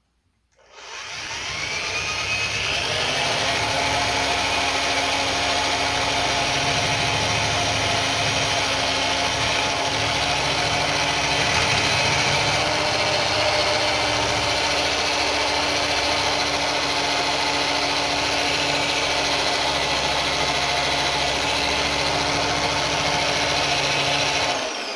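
Electric drill spinning a homemade sanding drum: the motor starts about a second in, runs at a steady speed with a constant whine, and begins to wind down near the end.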